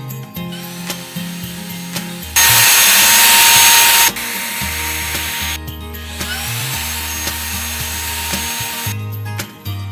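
Cordless handheld vacuum cleaner's brushless motor running with a steady whine and a rush of air. It is loudest for about a second and a half starting about two and a half seconds in, then stops abruptly; fainter motor hum with rising whines comes before and after. Background music with a steady bass line plays throughout.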